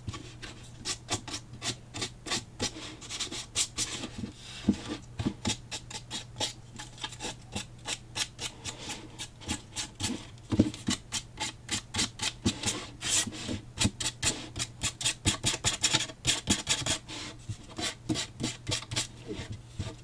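Sandpaper rubbed in quick back-and-forth strokes over the corner of a cardstock-covered cardboard box, sanding down the bulky edge to smooth it.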